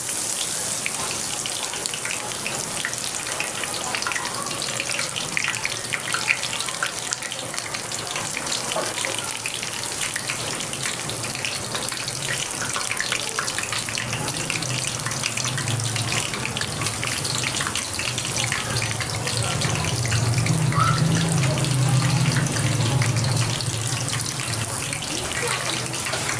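Water running steadily from a tap into a sink, with many small clinks and splashes. A low hum joins about halfway through and fades near the end.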